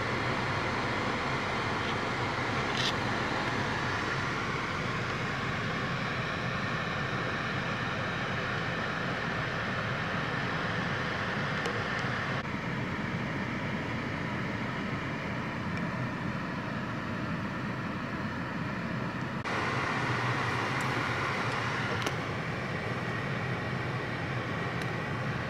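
Steady hum and rush inside a parked car's cabin with the engine idling and the air-conditioning blower running. The tone shifts abruptly a few times.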